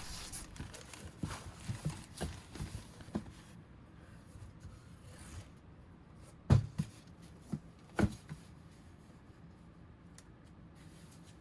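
Unboxing handling sounds: light rustling of packaging with small clicks, then a few sharp knocks, the loudest about six and a half and eight seconds in, as the soldering station and its parts are handled.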